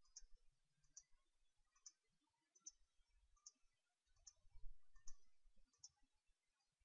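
Faint computer mouse clicks, one about every second in a steady rhythm, with a few faint low rumbles between them.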